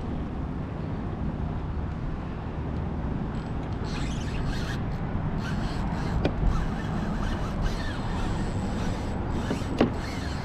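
Steady wind and water noise on a body-worn microphone, with two sharp knocks about six seconds in and near the end.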